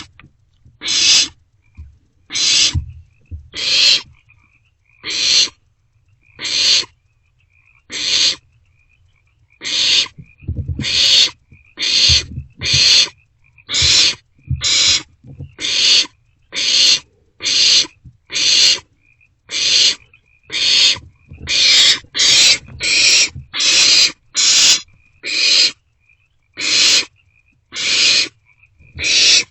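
Barn owlets giving harsh hissing begging calls, one about every second, coming faster and closer together in the second half.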